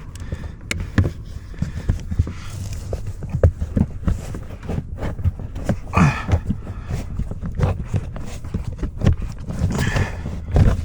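Irregular knocks, clicks and short scrapes of plastic dash trim and footwell carpet being handled and pulled down inside a car's passenger footwell.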